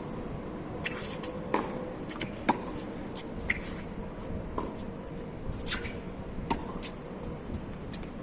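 Tennis rally: sharp pops of the ball off racket strings and the court surface every second or so, over wind rumbling on the microphone.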